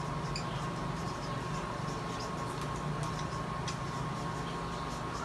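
Marker pen writing on a large paper wall chart: faint scratches and small taps, over a steady low hum with a thin steady tone.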